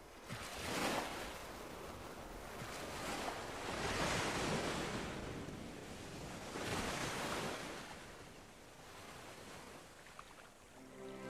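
Ocean surf: waves washing in and drawing back in slow swells, about one every three seconds, growing fainter toward the end.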